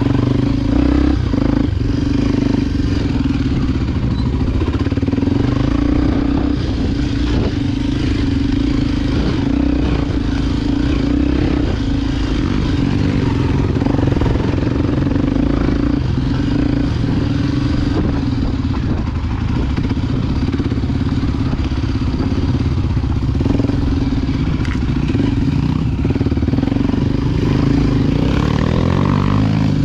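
Honda XR250 Tornado single-cylinder four-stroke dirt bike engine, enlarged to 293 cc, running at a steady pace on the trail, with scattered knocks and rattles.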